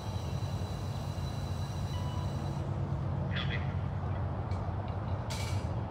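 Steady low rumble, with a few short scratchy rustles in the second half.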